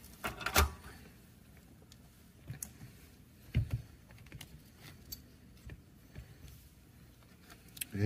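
A few faint clicks and knocks of metal parts being handled as gloved hands undo a helping-hand stand's alligator clip and lift a soldered wire out; the strongest knock comes about three and a half seconds in.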